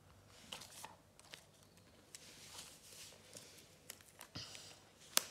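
Faint rustling and small crackles of a Panini football sticker's paper backing being peeled off by hand, with one sharp click near the end.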